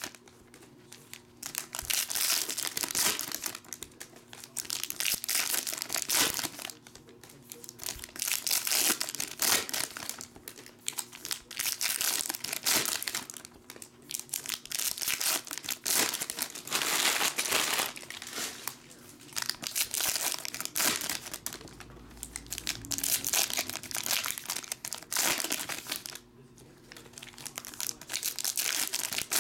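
Foil trading-card pack wrappers being torn open and crinkled by hand, coming and going in repeated rustling bursts with short quieter gaps.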